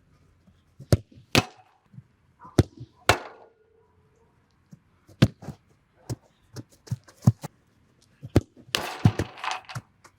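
Soccer ball kicked hard again and again: a dozen or so sharp thuds at uneven intervals. About nine seconds in comes a longer noisy rush lasting nearly a second.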